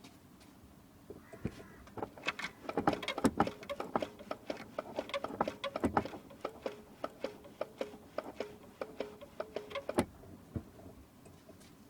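Volkswagen Polo sedan clutch pedal being pressed over and over: a run of clicks and knocks from the pedal linkage, then a small squeak repeating about twice a second in time with the strokes. The squeak persists after the pedal bushing was greased, which the owner blames on the clutch slave cylinder.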